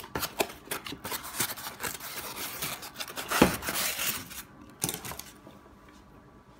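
Small cardboard box being handled and opened by hand: flaps scraping and packaging rustling, with a sharp knock about three and a half seconds in and another near five seconds. Quieter after that.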